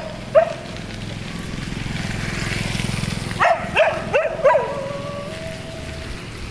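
A dog barking: two short barks at the start, then a quick run of four barks a little past halfway that trail off into a drawn-out howl. A low rumble swells and fades underneath in the middle.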